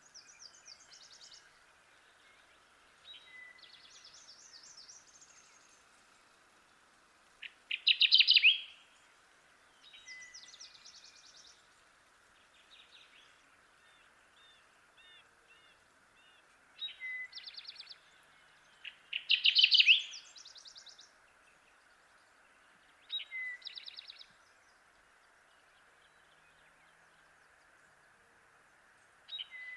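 Kirtland's warblers singing: short songs of rapid, loud chip notes ending in clear whistles, each about a second and a half long and repeated every few seconds, the loudest about eight and twenty seconds in with fainter songs between. A steady background hiss runs underneath.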